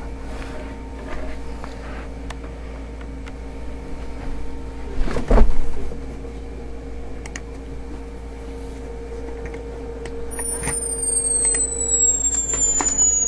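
A steady low hum with a loud thump about five seconds in. About ten seconds in, a high-pitched hearing-test tone comes in and slides slowly downward in pitch.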